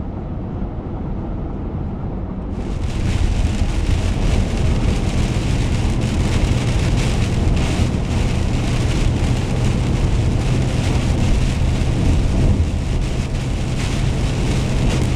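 Car driving at highway speed with steady low tyre and engine rumble, heard from inside the cabin. About two and a half seconds in, heavy rain starts hitting the windshield and roof, a loud steady hiss over the road noise.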